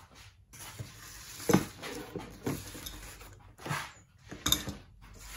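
A plastic tub being handled and set down on a workshop floor: a few sharp knocks and clatters, the loudest about a second and a half in.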